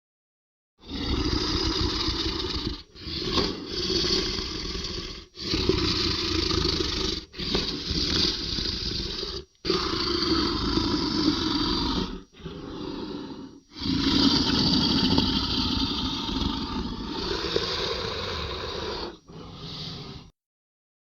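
A run of dragon creature sound effects: about eight rough growls and roars in a row, each one to five seconds long, with short silent gaps between them. The longest runs for about five seconds in the second half.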